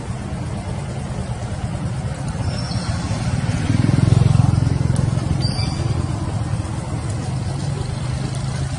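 Low, steady engine rumble of a motor vehicle, swelling to its loudest about four seconds in and then easing off.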